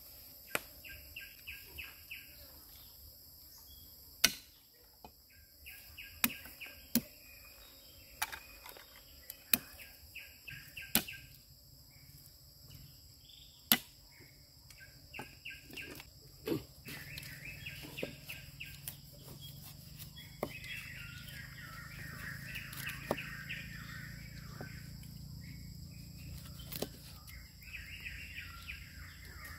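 Wild birds chirping and trilling in short repeated phrases, busiest in the second half, with scattered sharp clicks and knocks from handling ingredients and cutting on a wooden board.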